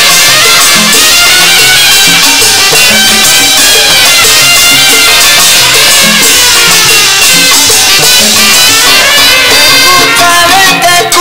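A salsa record playing from vinyl on a turntable: an instrumental passage with a stepping bass line under a full band. A new wavering held note comes in near the end.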